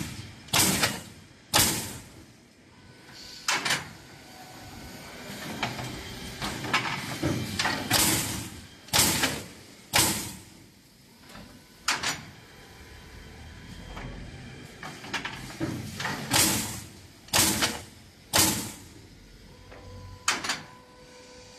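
Pneumatic pallet block nailing machine at work: sharp bursts as the air-driven nailers fire, often in runs of two or three about a second apart, with quieter mechanical clatter between them.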